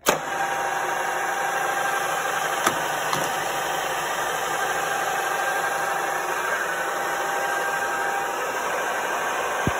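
Saut du Tarn J320 drilling and boring machine's spindle and gearbox running at about 2000 rpm: a steady whir with a faint whine, starting abruptly at switch-on. Two light clicks come a little under three seconds in.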